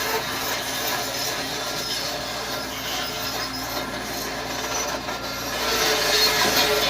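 Volvo EC210D hydraulic excavator working, its engine running under a scraping, rubbing noise that grows louder about six seconds in.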